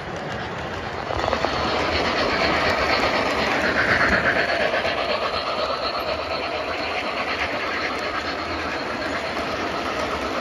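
O scale model train rolling past on the layout track, with a steady clatter of wheels over the rails. It gets louder about a second in and is loudest around four seconds.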